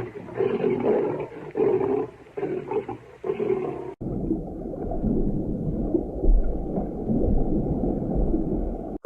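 Animal calls from two spliced recordings: first a series of short pitched calls with pauses between them, then, after a sudden cut about four seconds in, a lower, rough, continuous animal sound.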